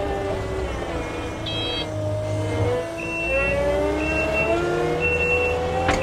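Kubota SSV65 skid steer's four-cylinder turbo diesel engine running as the machine drives, its pitch rising and falling with the throttle. A short high beep repeats about once a second in the second half.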